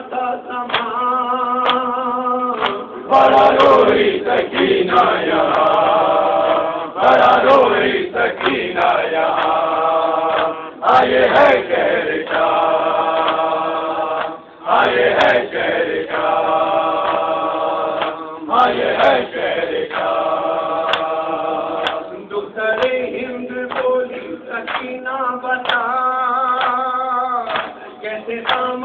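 A male nauha reciter chanting an Urdu mourning lament through a microphone, unaccompanied, in long held phrases with loud swells every few seconds; other mourners' voices join the chant.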